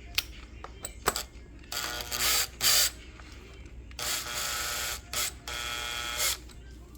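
Small clicks and knocks of parts being handled during work on a carburetor and fuel lines, with several buzzing bursts about a second long.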